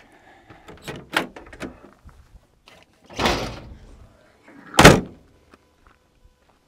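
Morris Minor's driver's door opened with a few light latch clicks, a muffled clunk from inside the car about three seconds in, then the door slammed shut just before five seconds in, the loudest sound.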